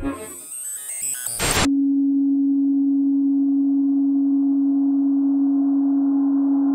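Electronic ambient soundtrack: a short noisy sweep, then about a second and a half in a single loud, steady, low pure tone starts and holds, with a faint hiss beneath it.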